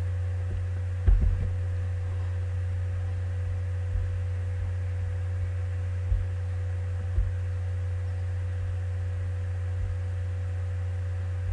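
Steady low hum carried on the recording, with a few short low thumps, the strongest about a second in.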